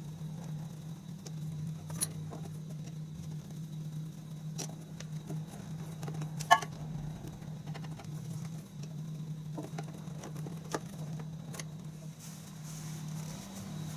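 Hand tools and metal parts clinking now and then, with one sharp clink about six and a half seconds in, over a steady low hum.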